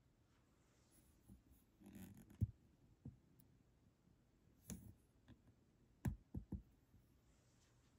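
Quiet room with a few faint, scattered clicks and soft knocks. The sharpest comes about two and a half seconds in, and a quick group of three comes near the end.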